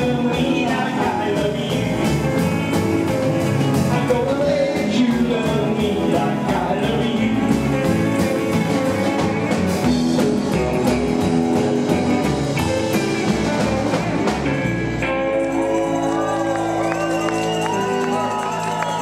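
Live rockabilly band playing: male lead vocal over electric guitar, double bass and drums. From about fifteen seconds in the beat drops away and the band holds a long ringing final chord as the song ends.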